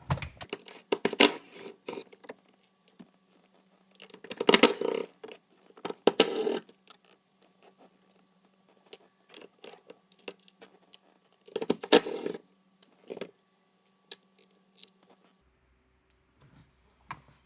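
10 mm socket on a ratchet clicking and rattling in several short bursts as the four bolts holding the Honda Accord's manual shifter assembly are loosened and backed out.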